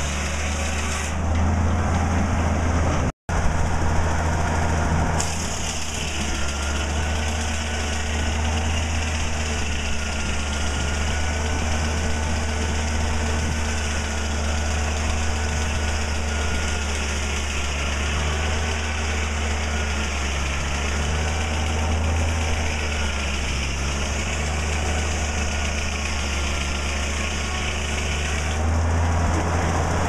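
Antique circular sawmill running: the large circular blade cutting a log, over the steady low hum of the engine that drives it. The sound cuts out for an instant about three seconds in.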